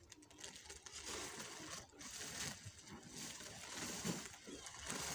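Dry chopped wheat straw (tūṛī) and its sack rustling as the straw is shaken and poured out, in uneven bursts.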